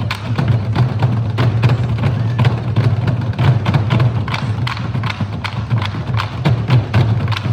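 Nanta-style Korean drumming: sticks striking drums in a quick, steady rhythm of sharp hits, several a second, over backing music with a steady low bass.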